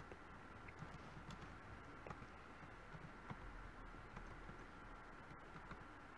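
Faint computer keyboard typing: scattered soft key clicks over near-silent room hum.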